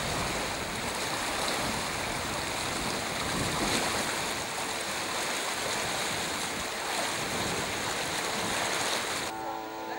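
Floodwater of the overflowing Gouessan river rushing, a steady noise that cuts off shortly before the end.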